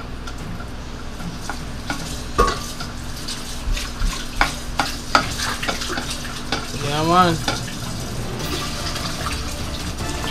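Black serving spoon scooping rice out of a tall metal pot and knocking it onto a plate: a series of sharp knocks and scrapes, with a short wavering tone about seven seconds in.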